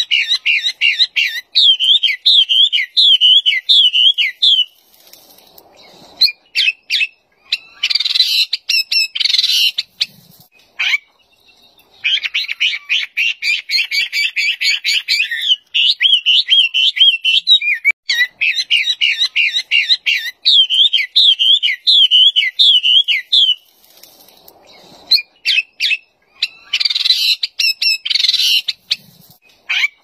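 Chinese hwamei (wambi) singing: a loud, rapid song of fast repeated notes and wavy whistled phrases, delivered in several bouts separated by short pauses.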